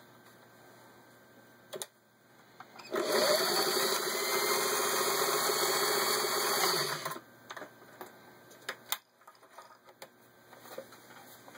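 Singer 403A sewing machine stitching through six layers of denim: the motor speeds up about three seconds in, runs steadily for about four seconds, then stops. A few light clicks and knocks follow.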